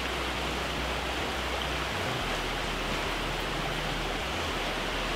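Steady rush of a fast-running river in high water, an even noise with no let-up.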